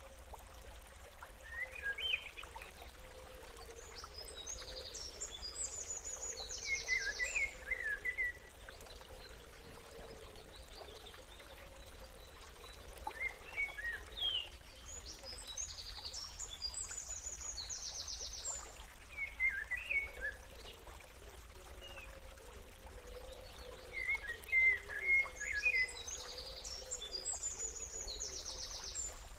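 Birdsong, chirps and short trills, repeating in the same pattern about every eleven seconds: a looped background track of birds.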